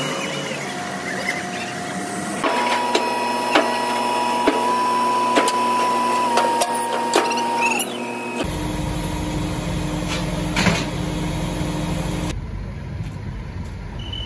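Heavy machinery lifting a steel truss: a steady mechanical whine with sharp metallic clicks and knocks, then from about eight seconds in a deep diesel engine rumble. The sound changes abruptly a few times.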